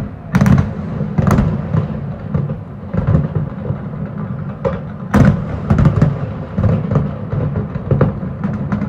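Fireworks shells bursting in an uneven, rapid series of deep booms, several with a crackling top, the loudest a little past the middle.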